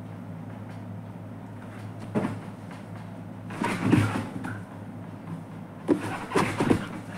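Bumps, scuffs and rustling as a dog plays on a floor mattress: a short bump about two seconds in, a cluster of knocks and rustles near four seconds, and several sharp knocks near the end. A steady hum runs underneath.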